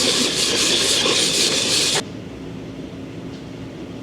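A metal fuel pump body part rubbed back and forth on 220-grit sandpaper, a steady gritty scraping that stops abruptly about two seconds in. The part is being lapped flat on its gasket surface.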